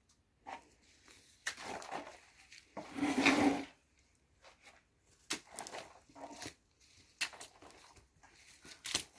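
Short, uneven wet working noises of a Güsse wall coating being applied to an adobe wall, the loudest about three seconds in.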